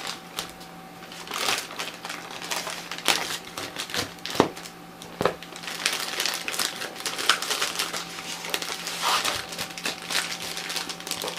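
Plastic courier mailer bag crinkling and rustling as it is pulled open by hand and a cardboard box is worked out of it, with a few sharper snaps about four and five seconds in.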